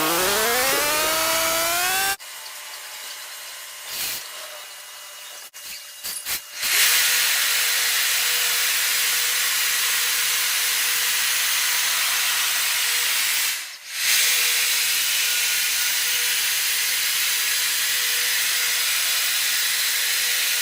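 Automatic car wash machine running: a motor whine rising in pitch, then after a quieter few seconds a loud, steady hiss of its jets, which drops out briefly about 14 seconds in.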